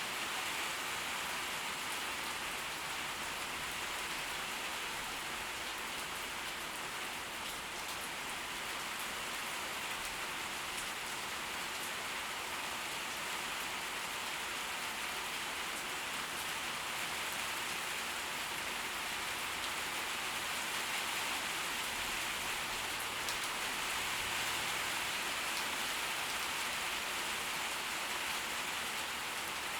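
Steady tropical-storm rain falling, with individual drops ticking through the even hiss. It swells slightly in the last third.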